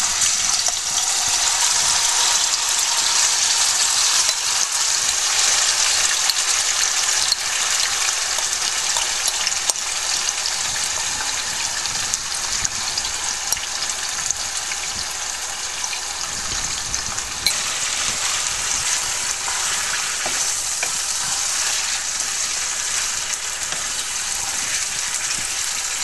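Marinated boneless chicken sizzling hard in hot oil in a frying pan, just added and starting to fry. The sizzle is loudest at first and eases a little after about seventeen seconds.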